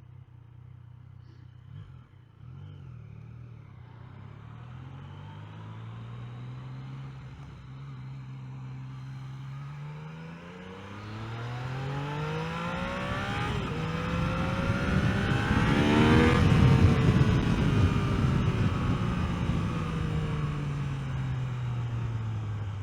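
Yamaha XSR900's 847 cc inline-three engine under acceleration, revs climbing with a brief dip about ten seconds in at a gear change, then pulling hard to a loud peak about two-thirds of the way through. The revs then fall away steadily as the bike slows, with wind rush at the loudest point.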